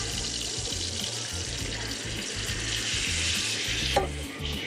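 Coconut marinade mix poured into a hot frying pan of chicken tenderloins, hissing and sizzling steadily as it hits the pan. A sharp knock comes about four seconds in.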